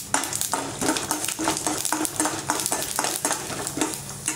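Tempering in hot oil in a stainless steel kadai: mustard seeds, chana dal and urad dal frying and sizzling, with many sharp clicks, while a metal spoon stirs them around the pan.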